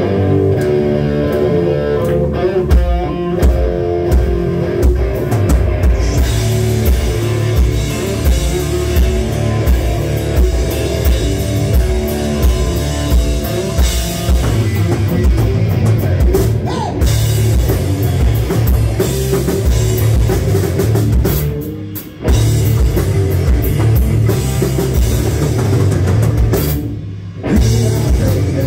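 Live rock band playing an instrumental passage: electric guitars, bass guitar and drum kit with a steady beat. The cymbals fill in after a few seconds, and the band stops for two short breaks near the end.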